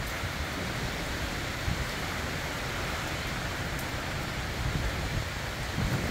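Summer rain falling steadily during a thunderstorm.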